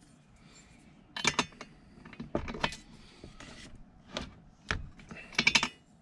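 Metal clinks and clicks of a spark-plug wrench being fitted over a chainsaw's spark plug and turned to tighten it: several separate, irregular sharp clinks.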